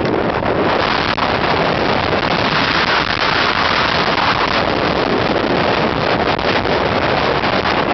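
Hurricane wind buffeting the microphone over heavy storm surf breaking against a seawall: a loud, steady roar.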